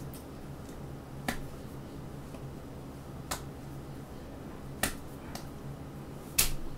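Sharp slaps and clicks of hands striking each other while signing, about five at uneven intervals, the last one the loudest, over a low steady room hum.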